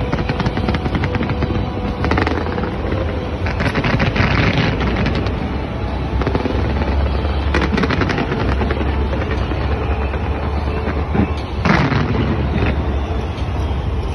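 Fireworks going off in dense, rapid volleys of pops and crackles over a continuous low rumble of booms. The heaviest volleys come about two seconds in, again near eight seconds and around twelve seconds.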